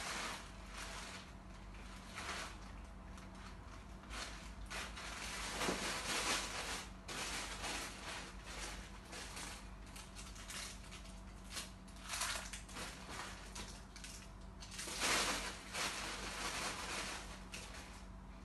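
Plastic carrier bag rustling and crinkling as it is handled and rummaged through, in irregular bursts, loudest about six seconds in and again near fifteen seconds.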